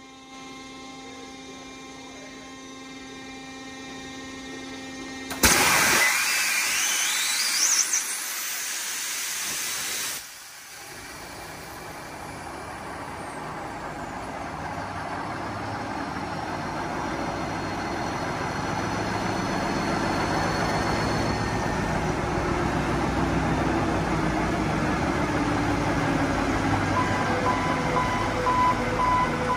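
Large marine diesel generator set starting: about five seconds of loud hissing with a rising whine as it turns over, then it fires and runs up, its running noise growing steadily louder. Before the start, a steady machinery hum with several tones; an intermittent beeping begins near the end.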